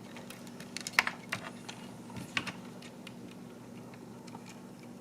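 Light clicks and taps of plastic parts and connectors being handled while the water heater of an electronic bidet seat is disconnected, the sharpest click about a second in and a few more around two and a half seconds in, over a steady low hum.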